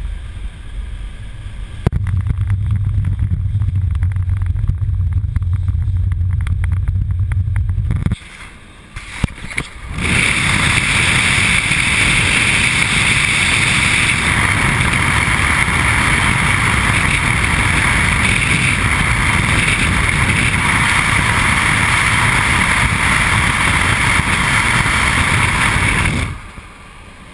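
Car driving at highway speed. For the first several seconds there is a low, steady rumble of engine and road noise in the cabin. After a short lull comes a loud, steady rush of wind over the microphone that cuts off near the end.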